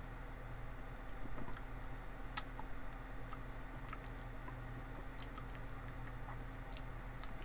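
Scattered faint, sharp clicks at irregular intervals over a steady low electrical hum.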